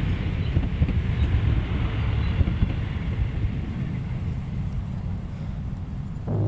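Low, steady rumble of a car on the move, engine and road noise, easing off a little toward the end.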